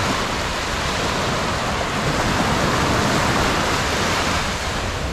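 Small sea waves breaking and washing up a sandy beach, a steady hiss of surf.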